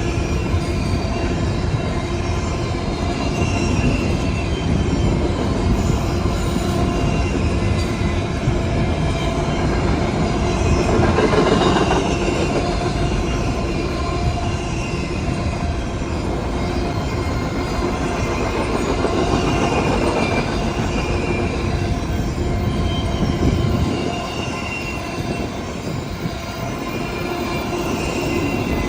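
Cars of a long intermodal freight train rolling past steadily, with wheels clattering over the rails and faint wheel squeal.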